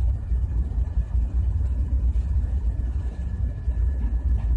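A steady low rumble of machinery running in the background.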